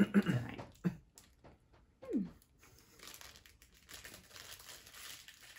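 Plastic snack wrapper crinkling as a chocolate-coated madeleine is unwrapped by hand, a faint rustle through the second half.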